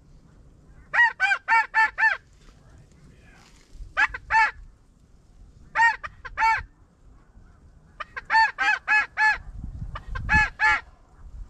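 Snow goose calls: short, high honks in quick runs of two to six, with pauses of a second or two between runs.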